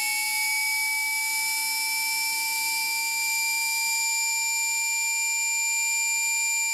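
Desoutter Type 3 air die grinder running free at full throttle on a 50 psi air supply, its vane motor giving a steady high-pitched whine that creeps up slightly in pitch at first as it reaches top speed.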